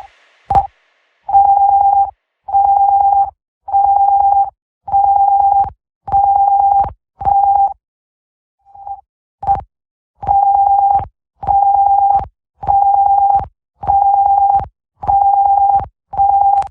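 Emergency alert tone: a single-pitch beep of just under a second, repeated about once every 1.2 seconds. The beeps break off for about two seconds after about eight seconds, then resume.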